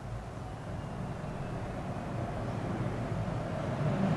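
Low, steady outdoor background noise that slowly grows louder, with no distinct clicks or tones.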